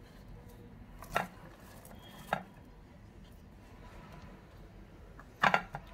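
A few sharp, separate kitchen knocks while sliced onions are being laid out: one about a second in, another a second later, and a louder double knock near the end.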